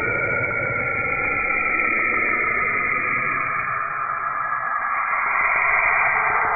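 Space sound presented as Saturn's: radio emissions turned into audio. It is a dense, grainy hiss with several high tones layered over it, drifting slowly down in pitch.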